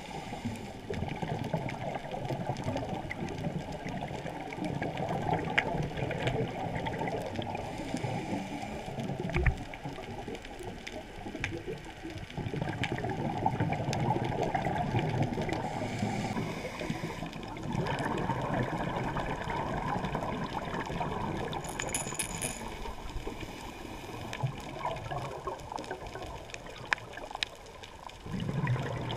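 Scuba diver's exhaled bubbles gurgling underwater, coming in surges a few seconds apart and sounding muffled and dull through the GoPro's waterproof housing. A few faint clicks stand out above it.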